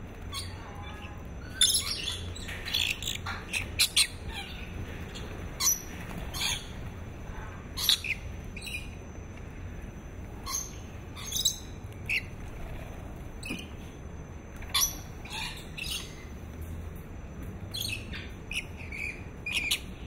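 Rainbow lorikeets calling close by: many short, shrill squawks at irregular intervals, sometimes several in quick succession.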